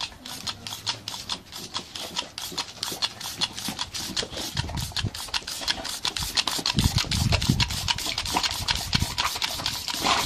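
A boxer dog snapping its jaws at a thin jet of water, the spray spattering on its mouth, over a rapid, even ticking of about five clicks a second. A few low thuds come in the second half.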